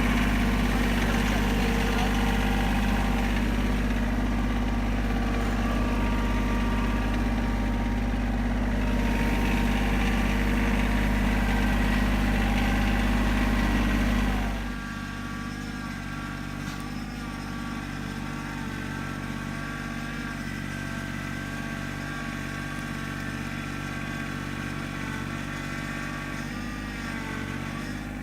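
An engine running steadily, loud at first, then dropping to a quieter, lower level about halfway through and running on steadily.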